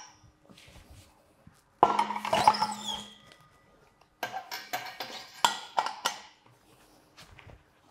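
Air rushing out of a motorcycle tire's valve for about a second and a half as the tire is deflated, followed by a run of sharp metallic clicks and knocks from handling the wheel and tools.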